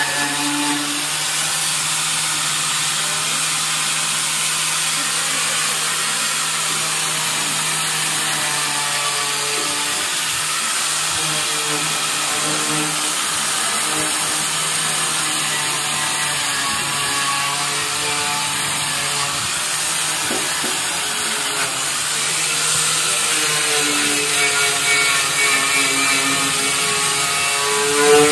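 Hand-held electric power tool running steadily while it scours rust off the tricycle sidecar's steel, slightly louder in the last few seconds.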